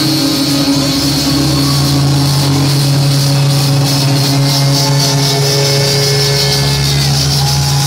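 Loud club music: live saxophone playing long held notes over an electronic dance track with a steady beat and bass.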